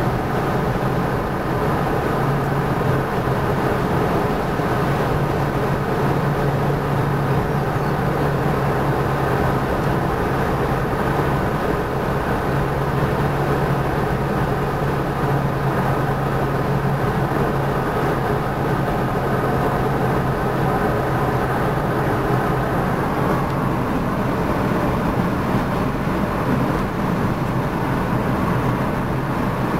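Steady road noise inside a moving car's cabin: a low, even engine hum under the rush of tyres on asphalt.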